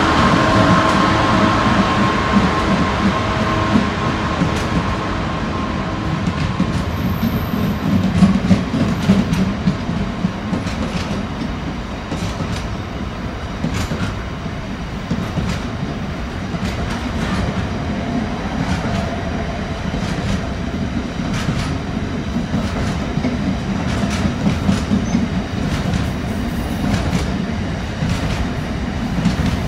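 A Class 66 diesel freight locomotive passes, its engine note fading over the first few seconds. Then a long train of covered wagons rumbles by, its wheels clicking steadily over the rail joints.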